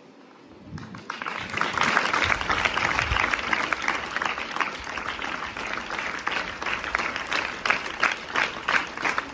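Audience applauding with many hands clapping. The applause starts about a second in and keeps going steadily.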